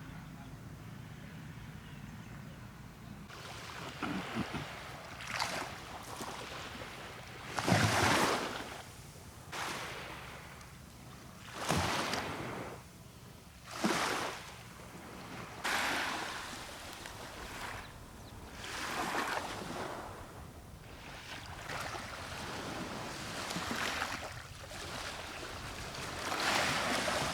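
Sea waves splashing against a small fishing boat: rushing surges of water every couple of seconds, the loudest about eight and twelve seconds in.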